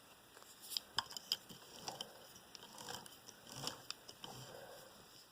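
Faint, irregular small clicks and taps from the open Kenmore sewing machine's mechanism being handled while its moving parts are oiled.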